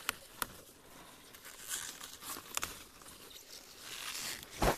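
Leafy green stalks being snapped and torn off the plant by hand, with rustling of the broad leaves. Two crisp snaps come right at the start, and a louder snap comes near the end.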